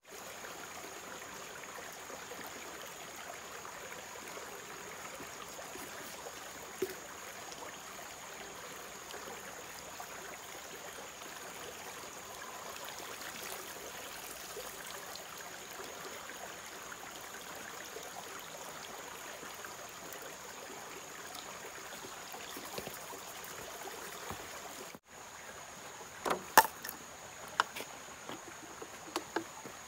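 Shallow stream running over rocks, a steady rush of water, with water sloshing as rice is rinsed in a pot at the stream's edge. After a cut near the end come a few light knocks and clicks.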